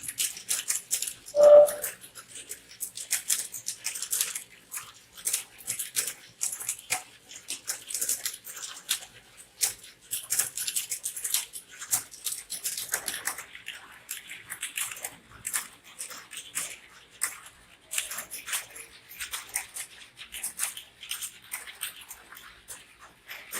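Computer keyboard typed on quickly and steadily, a dense irregular patter of key clicks. A single brief tone, the loudest sound, cuts in about a second and a half in.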